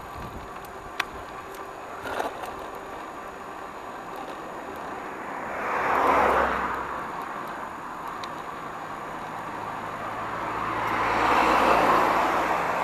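Two motor vehicles pass close by a bicycle, first a car about six seconds in and then a van near the end. Each one's tyre and engine rush swells up and fades away, over steady road noise.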